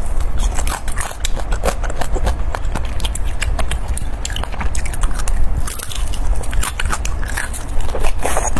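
Close-miked biting and chewing of a glazed, sesame-coated piece of meat: a dense, irregular run of sharp, wet mouth clicks.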